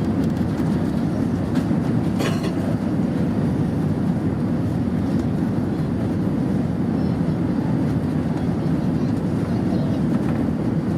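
Steady low rumble of cabin noise inside an Airbus A320 jet, with a brief rattle about two seconds in.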